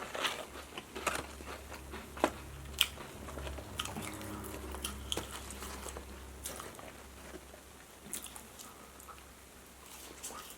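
Close-miked biting and chewing of food: scattered crunchy bites and wet mouth clicks, over a faint low hum.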